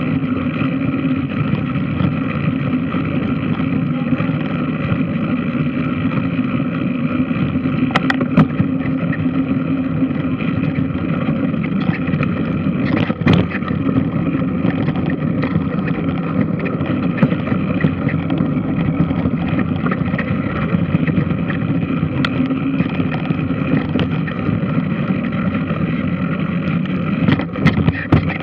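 Large washing machine running with a steady mechanical drone, with a few sharp knocks about 8 and 13 seconds in and again near the end.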